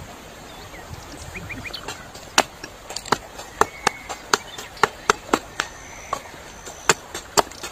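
Hatchet chopping a wooden stick held upright on a log chopping block: a quick series of sharp wooden knocks, about three a second, starting about two seconds in. A shallow stream runs steadily underneath, and a few bird chirps come before the chopping.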